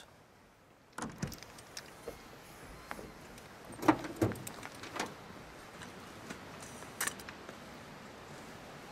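Clicks and clunks of a pickup truck's door, canopy and tailgate being handled and opened, the loudest clunk about four seconds in and another sharp click near seven seconds.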